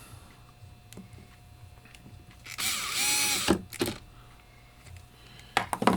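Power screwdriver running for about a second with a whine that dips and rises, driving in the screw that holds the back gear on a gumball machine coin mechanism. A few short clicks follow.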